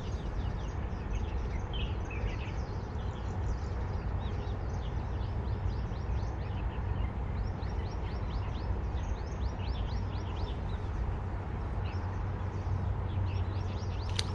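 Small birds chirping in runs of quick, high, falling notes over a steady low rumble.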